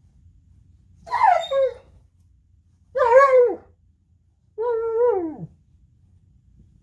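Alaskan Malamute giving three short, wavering cries about a second apart, the playful 'crying' talk of the breed; the last cry drops in pitch as it ends.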